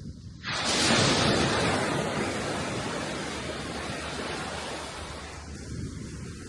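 A sea wave breaking about half a second in, its surf rush starting suddenly and then slowly fading over the next few seconds.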